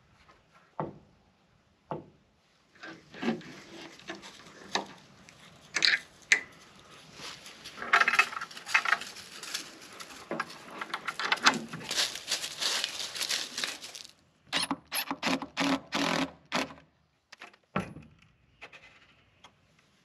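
Handling noise from fitting a wooden clean-out door with metal strap hinges and a latch: scattered clicks, scrapes and jangling of the hardware, with a quick run of sharp knocks about three-quarters of the way through.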